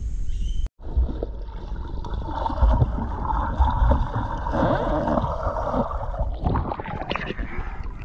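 Muffled underwater gurgling and churning of a child kicking and swimming through a swimming pool, heard with the microphone below the surface. Near the end it changes to water splashing above the surface.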